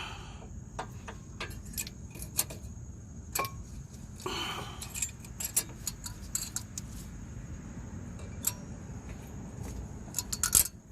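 Steel brake pad being worked into the caliper bracket's clips: irregular metallic clicks, clinks and scrapes, with a quick cluster of clicks near the end.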